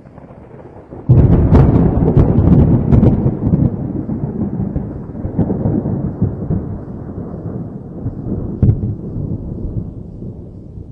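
A thunderclap: a sudden loud crack about a second in, followed by several more sharp cracks and a long rumble that slowly dies away, with one more short crack near the end.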